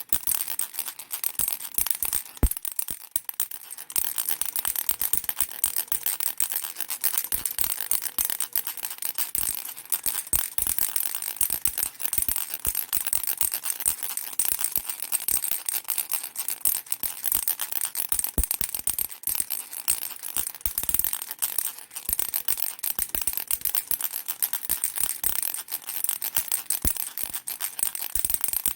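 Baby rattle shaken without pause: a dense, fast, high-pitched rattling.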